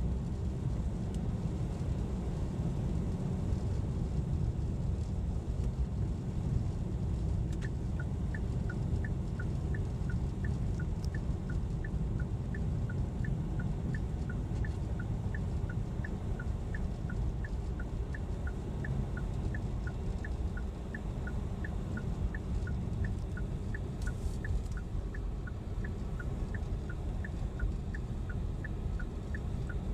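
Car cabin with a steady low rumble from the engine and road. From about eight seconds in, a turn-signal indicator ticks evenly, alternating two slightly different clicks, about two a second.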